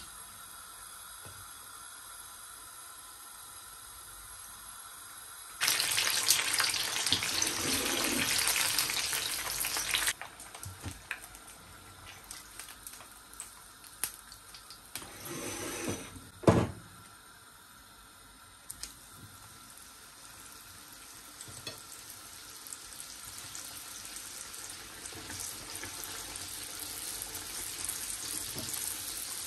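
Spring rolls deep-frying in a pan of hot oil, a steady sizzle and bubbling. A much louder hissing rush lasts about four seconds early on and stops suddenly, and a sharp knock comes a little past the middle. The sizzle builds toward the end as a full pan of rolls fries hard.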